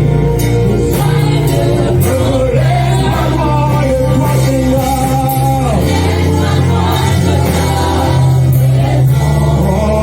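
Live gospel worship music with singing over a steady beat and sustained bass.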